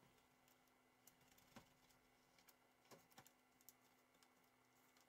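Near silence with faint, irregular clicks and taps from fingers working small foam padding strips on a workbench, over a faint steady hum.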